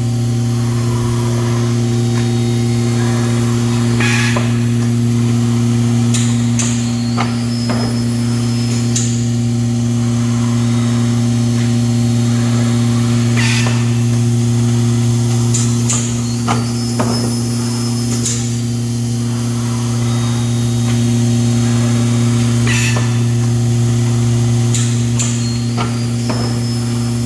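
Automatic mask packaging and band-sealing machine running: a steady low electric hum with irregular mechanical clicks and clacks every second or two.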